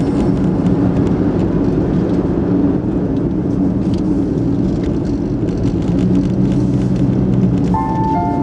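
Car driving along a road: steady engine and tyre noise, heard from inside the cabin. Short melodic notes of background music come in near the end.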